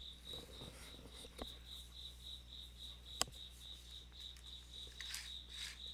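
Insect chirping: a steady high-pitched pulse repeating about five times a second. A single sharp click a little past three seconds in.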